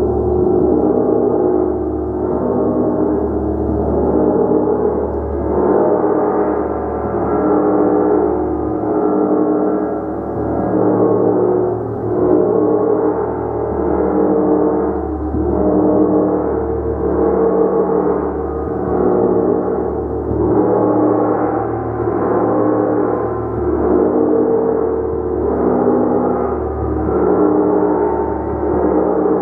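A gong being struck over and over, its dense, sustained shimmering wash of overlapping tones swelling and ebbing about every two seconds.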